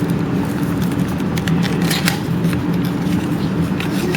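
A trading card pack being opened and handled: irregular crinkling and rustling clicks of the wrapper and cards, over a steady low hum.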